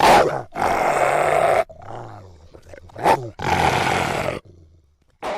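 Rottweiler growling aggressively: loud rasping growls about a second long, broken by two short, sharper outbursts, one at the start and one about three seconds in, with a quieter, lower growl in between.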